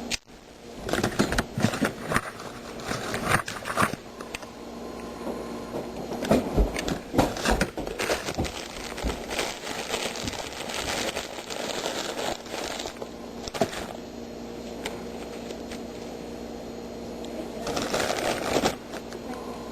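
Irregular clatter of knocks, clicks and scraping as cabinets and their contents are handled and rummaged through, busiest in the first two-thirds, over a faint steady hum.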